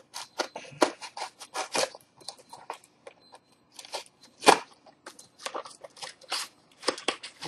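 Folding knife blade sawing and slicing through the packing tape of a taped package, giving quick irregular crackling and crunching strokes of tape and packaging. The loudest rip comes about four and a half seconds in.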